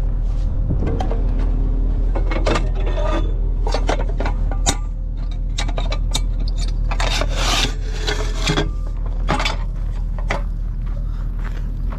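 Metal tow-dolly gear being handled: repeated sharp clanks and rattles with scraping, longest between about seven and eight and a half seconds in. Underneath, the Duramax wrecker's diesel engine is idling steadily.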